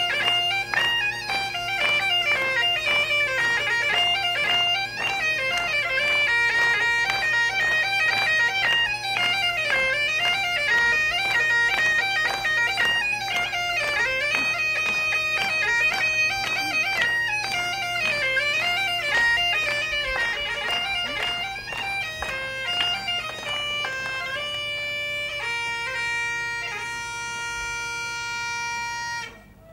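Great Highland bagpipes playing a tune over their steady drones. Near the end the melody slows into long held notes, and then the pipes stop abruptly.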